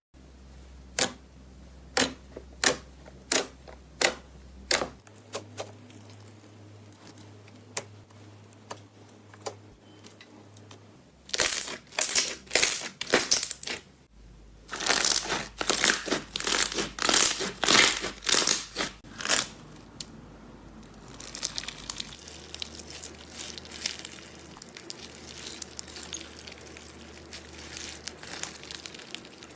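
Slime being pressed and squeezed by hand, giving crisp clicks and pops. At first they come about one and a half a second, then dense bursts of crackling from about a third of the way in, turning fainter near the end.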